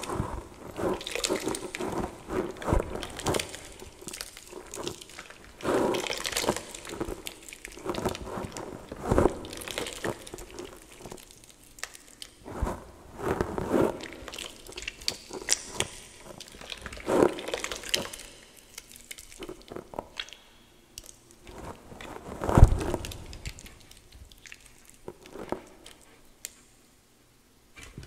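Hands squeezing and squishing wet gym chalk mixed with water in a bowl, with irregular wet squelches and crackles.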